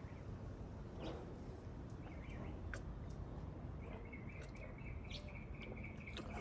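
Quiet background with scattered faint clicks and high chirps, a run of small chirps in the last two seconds.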